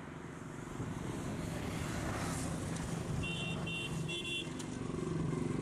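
A vehicle engine running steadily, growing a little louder, with three short high-pitched beeps about three seconds in.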